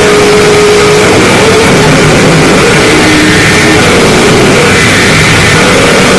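Harsh noise music: a loud, unbroken wall of distorted noise, with a held tone in the middle range that stops about a second in.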